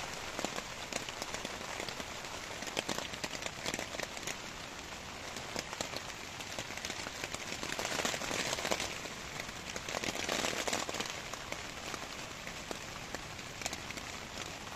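Rain falling on the Nurgaz Campout Neptün 3 tent's outer fly, heard from inside the tent: a steady hiss dotted with many sharp drop-ticks, a little heavier about eight seconds in and again two or three seconds later.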